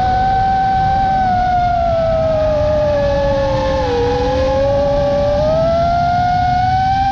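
FPV drone's motors whining over propeller and wind noise, one strong gliding tone that sags to its lowest about four seconds in and then climbs again as the throttle changes.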